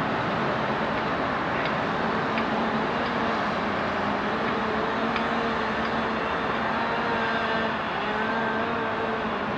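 Excavator's diesel engine running steadily under load, a low hum that wavers a little in pitch over a constant rushing noise, with a few faint ticks.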